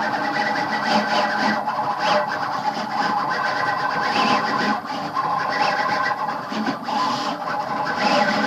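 Homemade plywood CNC router carving a test relief. Its stepper motors whine in tones that keep shifting in pitch as the axes move, over the steady noise of the spindle and cutter in the workpiece.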